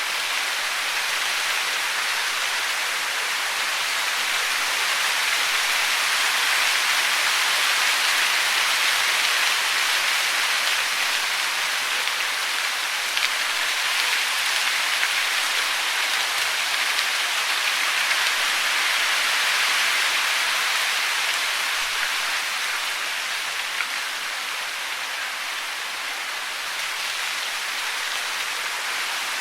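Steady hiss of falling water, even and unbroken, with a few faint ticks; it swells a little through the middle and eases slightly near the end.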